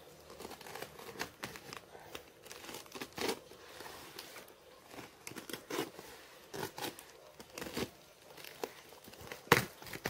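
Clear plastic wrap on a cardboard parcel crinkling and tearing as hands work it open, in irregular crackles and rustles, the loudest near the end.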